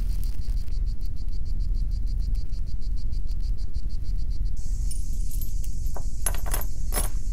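Crickets chirping in a fast, even pulse over a low, steady rumble. Near the end the chirping gives way to a higher hiss, and there are a few sharp clicks.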